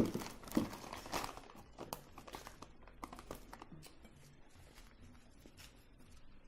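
A potato chip bag crinkling as it is handled, with chips crunching, in many sharp crackles that are loudest in the first couple of seconds and then grow fainter and sparser.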